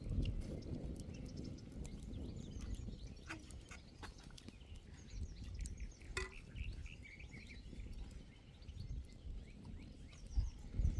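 Small birds chirping repeatedly in short calls over a steady low rumbling noise, with a few scattered sharp clicks.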